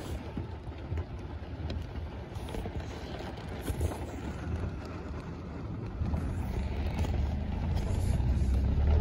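Heavy downpour falling onto a flooded road, a steady wash of rain on standing water, with a low rumble that grows louder from about six seconds in.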